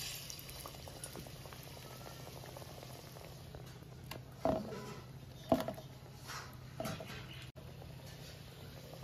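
Hot oil sizzling as a besan-battered jackfruit slice is lowered into a kadai to fry, a steady frying hiss. Three short louder sounds come about halfway through.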